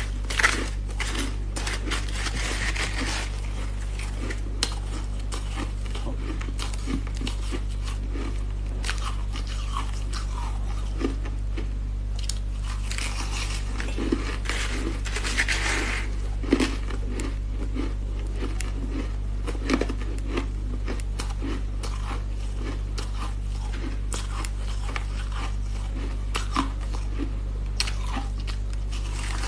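A person biting and chewing mouthfuls of snowy crushed ice, giving many short irregular crunches, mixed with a metal spoon scraping through the ice in a plastic tub. A steady low hum runs underneath.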